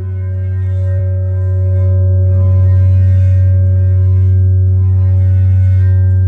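Large sand-covered metal Chladni plate ringing with a steady deep hum and higher overtones, set vibrating by a rubber-ball friction mallet rubbed against its edge. A second low pitch joins about two seconds in.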